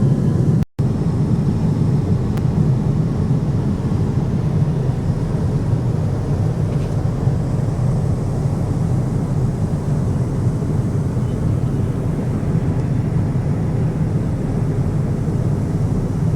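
Steady low drone of an airliner's cabin in flight: engine and airflow noise heard from inside the passenger cabin. The sound drops out for a split second under a second in, then carries on unchanged.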